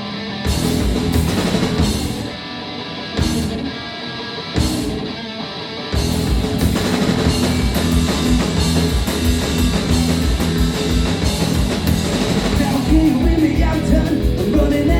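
Live punk rock band playing an instrumental break: electric guitar with a few separate drum and cymbal hits, then the full band with a steady drum beat comes in about six seconds in.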